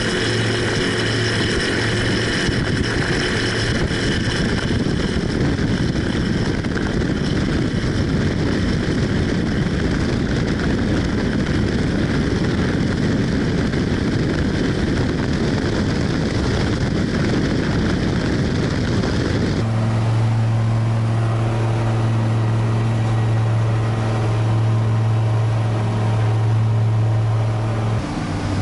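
The Che-29 amphibian's twin Rotax 912 engines and propellers run at takeoff power over a dense rushing noise. About twenty seconds in, the sound cuts to a steady, even propeller drone.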